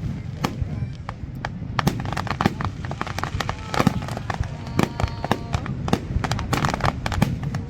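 Fireworks going off in a rapid, irregular volley of sharp cracks and bangs, several each second, with no pause.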